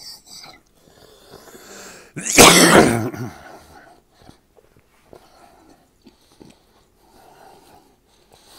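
A man coughs once, loudly, about two seconds in, while eating raw steak. Faint chewing and mouth sounds follow.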